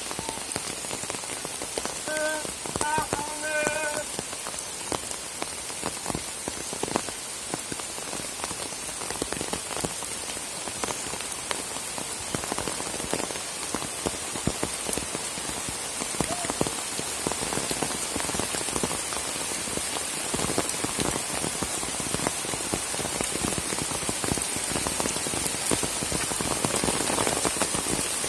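Steady rain falling, with many individual drops striking close by. A few short chirps sound about two to four seconds in.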